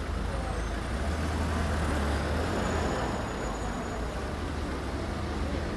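City street traffic ambience: a steady low rumble of vehicles under a general hiss of road noise, swelling slightly a second or two in as traffic passes.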